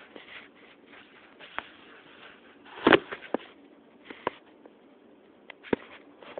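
Camera being handled and propped up on a wooden table: a cluster of knocks about three seconds in, then a few single sharp clicks.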